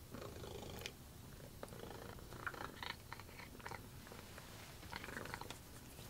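Pet cats vocalizing in short, irregular calls, with a few small clicks.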